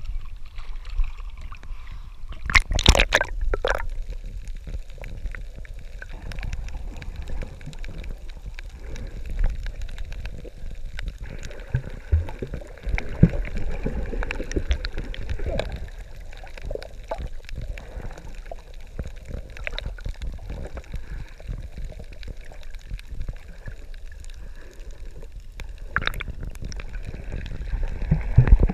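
Water splashing about three seconds in as the camera goes under, and again near the end, then muffled underwater sloshing and gurgling with a low rumble and scattered small clicks.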